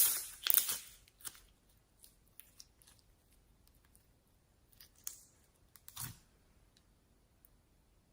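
Slime being squeezed and handled, giving sharp crackling pops and clicks: a loud cluster at the start, a few faint ticks, then two more pops about five and six seconds in.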